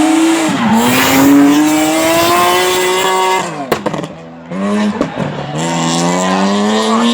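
BMW S54 3.2-litre straight-six in a race-prepared BMW 1 Series pulling hard up through the revs under full throttle. The note breaks off about three and a half seconds in with a few sharp cracks and a brief quieter dip as the throttle closes, then climbs again twice, with tyres squealing in the drift.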